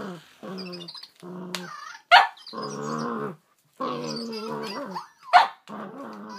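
A Cavalier King Charles spaniel growling in a run of short, even-pitched grumbles while tugging at a plush toy, with two sharp, loud barks, about two seconds in and again just after five seconds.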